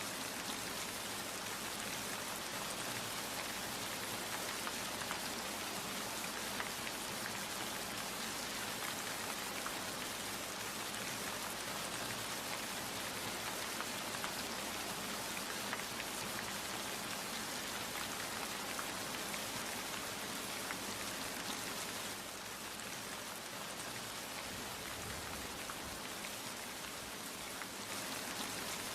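Steady rain falling, a dense hiss of drops with fine individual drop ticks. It eases slightly for a few seconds about three-quarters through, then picks up again near the end.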